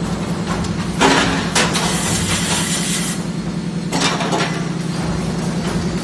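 LS-A6 fully automatic blow moulding machine running: a steady low hum with a fast pulse, broken about a second in and again about three seconds later by a sudden burst of hissing air, with a short knock just after the first burst.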